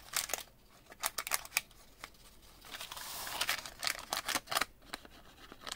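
Crinkly coffee-dyed parchment paper being handled and pressed down by hand, giving a run of short rustles and crackles, with a longer rustling hiss about three seconds in.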